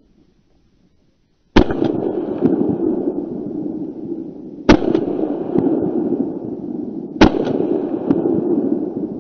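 Three shots from an MP-155 semi-automatic shotgun, the first about one and a half seconds in, then about three seconds and two and a half seconds apart, each followed by a long rolling echo.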